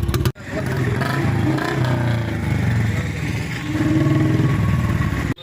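Royal Enfield Bullet motorcycle engine running and revving, its silencer a modified one of the kind that makes it pop like firecrackers. The sound cuts out abruptly just after the start and again just before the end.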